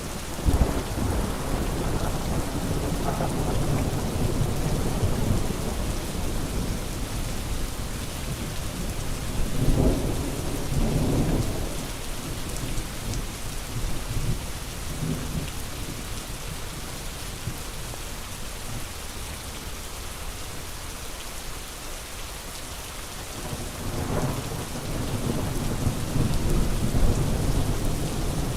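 Steady rain falling, with low rolls of thunder rumbling up three times: right at the start, about a third of the way in, and near the end.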